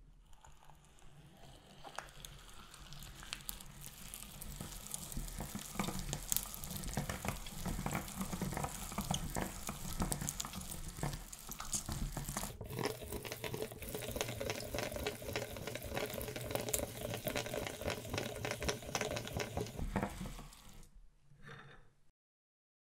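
Glittery clear slime being forced through a hand-cranked meat grinder, a wet squelching crackle full of small pops that builds over the first few seconds and dies away near the end.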